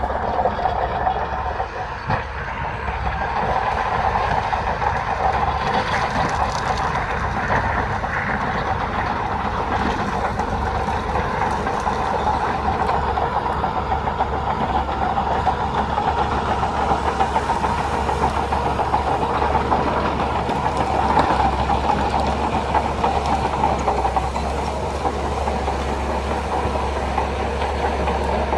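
Crawler bulldozer working: its diesel engine running steadily with the clatter of its steel tracks.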